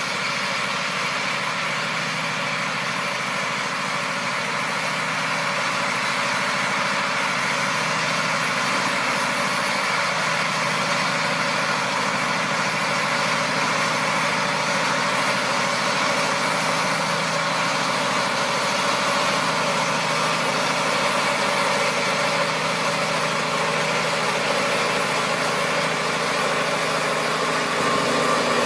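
Engine of a large farm machine running steadily, with a constant hum and mechanical noise and a slight rise in level over time.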